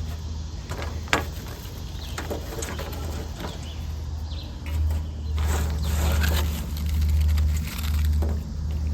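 Low wind rumble on the microphone, swelling in gusts about five seconds in, with scattered sharp crackles from bark burning in a hobo stove.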